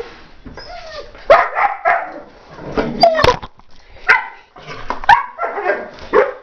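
Belgian Malinois barking and yipping, a string of about seven or eight short, sharp calls.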